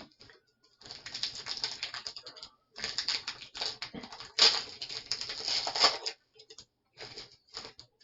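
Foil booster pack wrapper crinkling and rustling as it is handled and opened: two long stretches of dense crackling, then a few short crinkles near the end.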